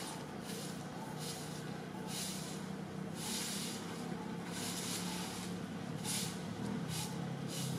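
Outdoor ambience: short hissing bursts come and go irregularly, about one or two a second, over a steady low hum.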